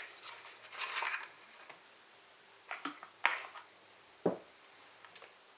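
Smith & Wesson Extreme Ops folding knives being handled: a brief rustle, then a few sharp clicks around three seconds in and a duller knock about a second later.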